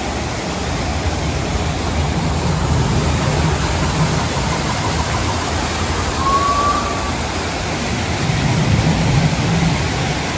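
Artificial rock waterfalls cascading into pools, giving a steady rush of falling water. A short high tone sounds briefly about six seconds in.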